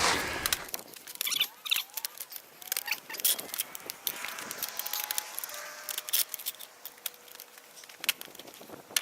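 Pallet wood being pried apart: a run of sharp clicks and cracks with faint squeaks from the boards and nails working loose.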